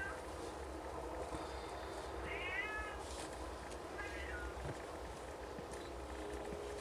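Snowshoe Siamese cats mewing: three short, high mews about two seconds apart.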